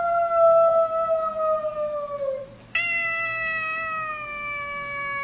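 Silver tabby cat giving two long, drawn-out meows, each sliding slowly down in pitch. The first trails off about two and a half seconds in, and the second starts a moment later and is held to the end.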